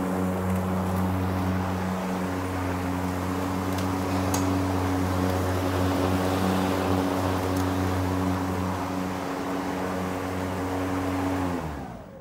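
Battery-powered electric lawn mower running while cutting grass: a steady motor and blade hum that fades out near the end.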